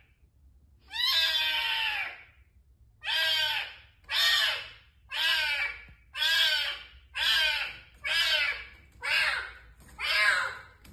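Kitten meowing over and over: one longer meow, then short meows about once a second.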